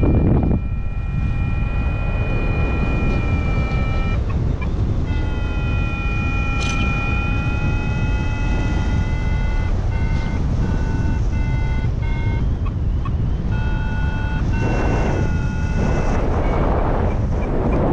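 Wind rushing over the microphone, with a paragliding variometer (XC Tracer Maxx) sounding a held electronic tone that shifts slightly in pitch and, about ten seconds in, breaks into a run of short beeps.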